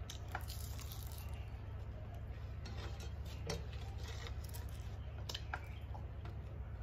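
Eating rice by hand from a steel plate: fingers mixing and squeezing rice, and chewing, heard as scattered soft clicks and squishes over a steady low hum.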